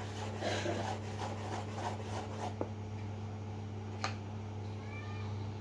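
Hands rubbing and stirring a dry flour mix in a plastic bowl. Soft, repeated swishes for the first two seconds or so, then a couple of light clicks, over a steady low hum.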